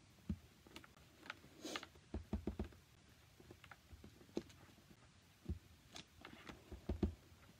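Clear acrylic stamp block being set down and pressed onto cardstock again and again: a scatter of light clicks and soft knocks, with a quick cluster of taps about two seconds in and the loudest taps near the end.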